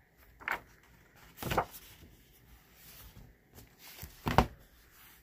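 A large hardbound book being handled and shut: a few short rustles and bumps of pages and cover, then a soft thump of the heavy cover closing about four seconds in.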